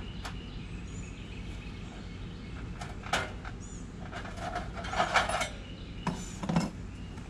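Clanks and rattles of a camp stove being handled and set up: scattered metallic knocks, busiest from about three to five seconds in.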